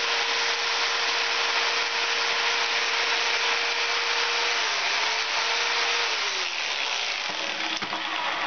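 Electric saber saw (jigsaw) cutting through the aluminum fins of an air-conditioner condenser coil, stripping them from the copper pipe. The motor runs steadily, dips briefly about five seconds in, then winds down and stops at about six and a half seconds.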